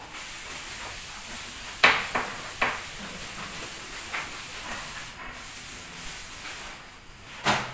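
Damp cloth wiping a chalkboard: a steady rubbing hiss, with a few sharp knocks against the board, the loudest about two seconds in and another just before the end.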